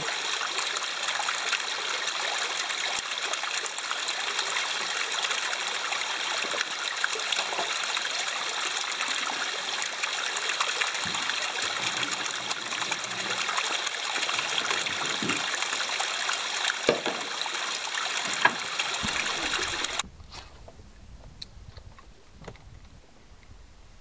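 Fresh water trickling and splashing steadily down a rock face. It stops abruptly near the end, leaving a quiet background with a few faint clicks.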